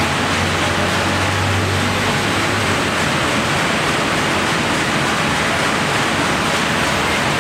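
Steady din of a packaging line's machinery on a factory floor: a continuous, even rushing noise, with a low hum underneath for the first few seconds.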